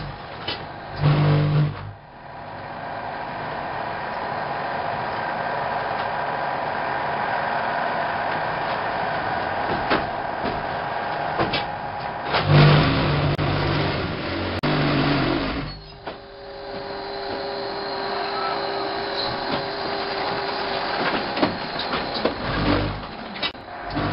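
A 1987 Henke Variant concrete block making machine and its production line running, with steady mechanical noise. A louder low drone comes in briefly about a second in, again for about three seconds from twelve seconds in, and once more near the end.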